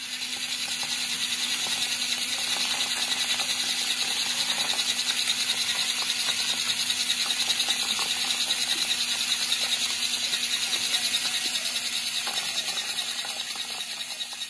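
Small electric motor of a miniature concrete pump running steadily with a fast, even rattling pulse while it pushes concrete out through the hose. It fades away near the end.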